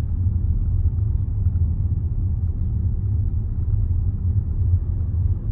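Steady low rumble of road and engine noise inside a moving Range Rover's cabin.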